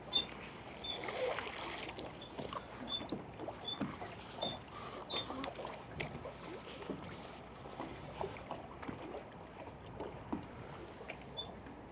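Water lapping and splashing lightly, with scattered small knocks and rustles and a few short high chirps.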